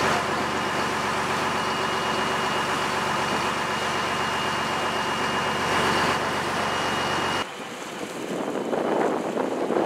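A charter fishing boat's engine running under way, a steady drone over the rush of its wake. About seven seconds in it cuts to wind buffeting the microphone over choppy water.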